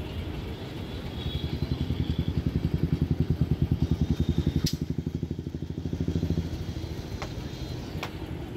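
A small engine running with a fast, even beat, growing louder over a few seconds and then fading, with a few sharp clicks.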